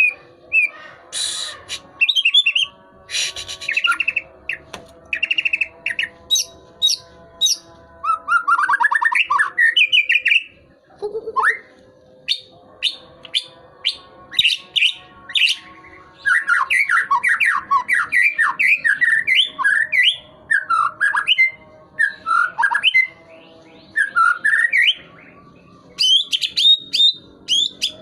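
Murai batu (white-rumped shama) in full song, delivering a long run of varied whistled phrases, fast trills and sharp chirps, with a faint steady hum underneath. It is still singing strongly while its tail feathers grow back in.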